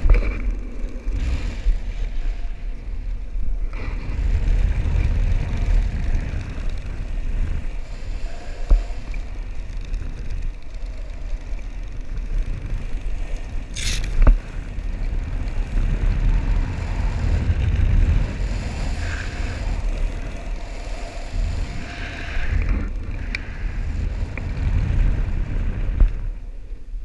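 Wind rushing over a body-mounted camera's microphone in wingsuit and parachute flight: a steady low rumble that swells and fades in gusts. A single sharp crack cuts through about halfway.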